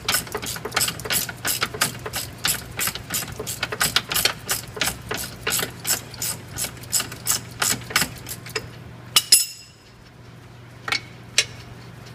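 Hand ratchet clicking at an even pace, about four to five clicks a second, as a lower control arm bolt is backed out. The clicking stops about eight and a half seconds in, followed by two sharp metal clinks and a few scattered clicks.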